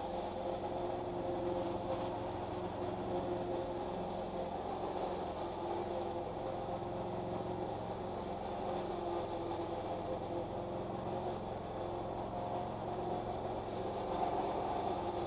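Small petrol engine of garden power equipment running steadily off to one side, a constant drone with a slight waver in pitch.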